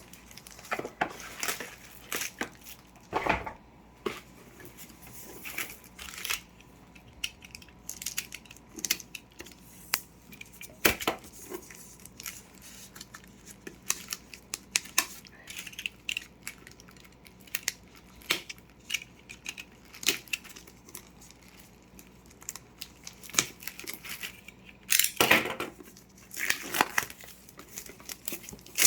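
Packaging being handled and opened: crinkling plastic and tearing, in irregular rustles and clicks, loudest about 25 seconds in.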